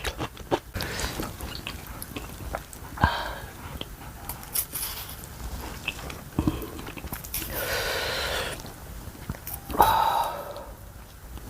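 A person eating ramen and kimchi close to the microphone: chewing and wet mouth noises with small clicks, and longer noisy stretches about eight and ten seconds in.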